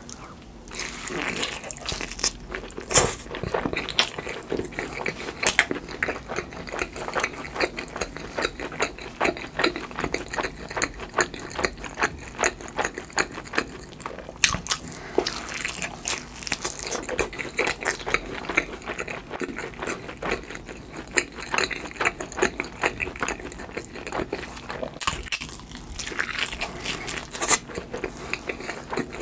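Close-miked eating of a crisp-crusted cheese pizza slice topped with mashed avocado: repeated biting and chewing with crunching of the crust and moist mouth sounds, a few crunches much louder than the rest.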